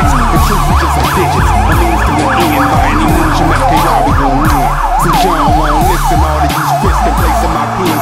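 Hip-hop backing track with a siren-like wail sweeping up and down about three times a second over a heavy bass line and a steady drum beat.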